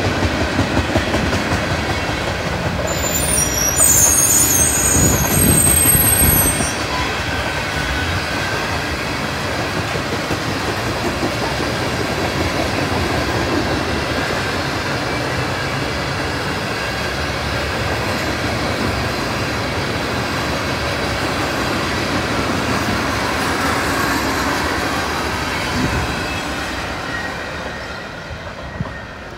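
Freight train of loaded tank cars rolling past on the track, a steady rolling noise of wheels on rail. About three seconds in, a high metallic wheel squeal sounds for a few seconds. The noise eases off near the end as the last cars go by.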